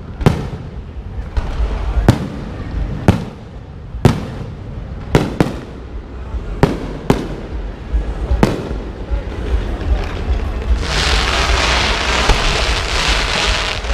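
Fireworks going off: single sharp bangs about a second apart, then, near the end, a dense continuous crackling of many small reports over a low rumble.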